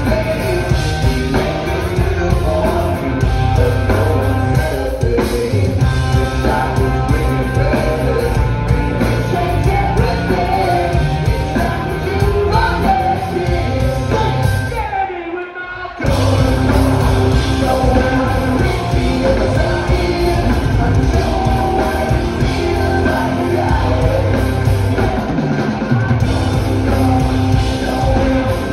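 A hard rock band playing live, with electric guitars, drums and singing. About halfway through the sound drops away for about a second, then the full band comes back in.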